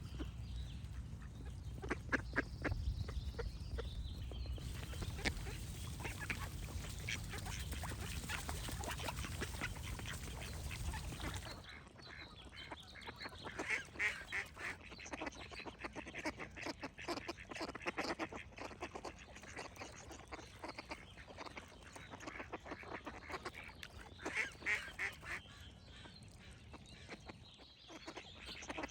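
Ducks quacking in quick repeated series, some runs louder than others. For the first twelve seconds a steady low rumble and hiss lie under the quacks, then cut off suddenly, and the quacking goes on over a quieter background.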